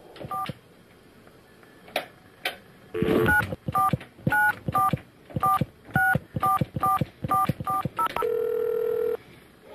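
Touch-tone telephone keypad beeping as a number is dialed: a couple of clicks, then about eleven short two-tone key beeps at roughly two a second, followed by a steady tone lasting about a second.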